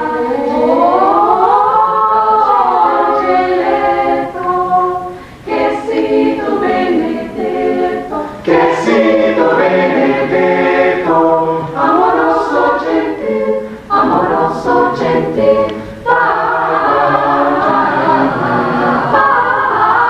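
Choir singing a cappella, the voices sweeping up and back down in pitch at the start, then going on in short phrases with brief breaks between them.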